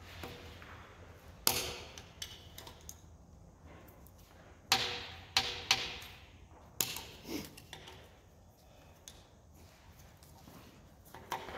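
Sharp metallic clicks and knocks, a handful of them with a short ring, as pliers work hydraulic roller lifters out of their bores in a Dodge 5.9 Magnum V8 block.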